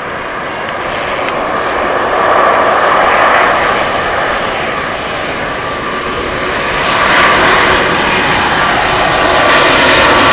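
Jet engines of a four-engine Airbus A340 airliner coming in to land, a steady rushing noise with a faint whine, growing louder as it nears.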